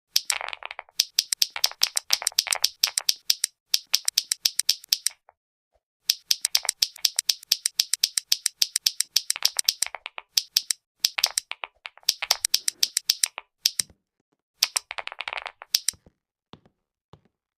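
Clicky keyboard keys pressed in quick runs of sharp clicks, about eight a second, that stop and start every few seconds. A few stretches bring a softer rattle under the clicks.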